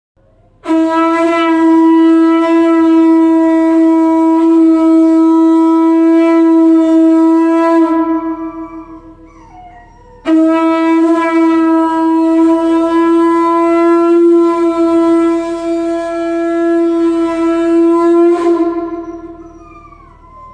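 Conch shell (shankh) blown in two long, steady blasts of about eight seconds each, with a short pause between them; the second blast ends with a brief break upward in pitch before dying away.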